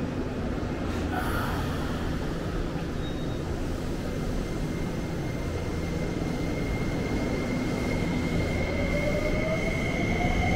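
Tsukuba Express electric train at the platform: a steady low hum, then from about eight seconds in a motor whine that rises in pitch as the train gathers speed.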